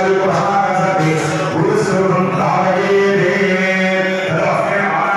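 Male Hindu priests chanting in a steady, continuous recitation, the voice held on a low, level pitch with no pauses.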